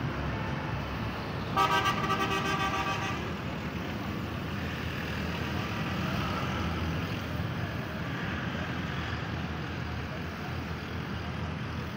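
Massey Ferguson tractor's diesel engine running with a steady low rumble. About a second and a half in, a vehicle horn sounds once with a fast flutter for about a second and a half, the loudest sound.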